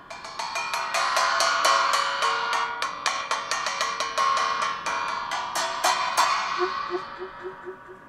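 Small stacked cymbals struck rapidly with a thin metal rod: a fast run of bright metallic strikes with ringing overtones, about four or five a second, that thins out about six seconds in. Short, soft low saxophone notes follow in an even row near the end.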